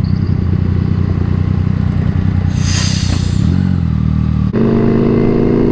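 Yamaha MT-09 inline three-cylinder engine with an Akrapovič exhaust, running on the move. The note is rough at first, with a brief hiss about two and a half seconds in. About four and a half seconds in it changes suddenly to a steadier, evenly pitched engine note.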